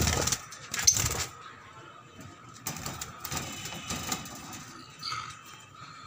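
Small parrots fluttering and clambering about a wire cage: bursts of wing flapping and rattling of the cage wire, two loud ones in the first second, then a run of softer ones a couple of seconds later.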